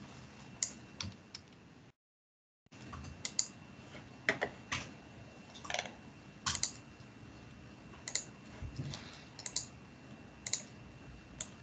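Scattered, irregular clicks and taps of a computer mouse and keyboard picked up by a desk microphone over a video call, with the call audio cutting out to silence for a moment about two seconds in.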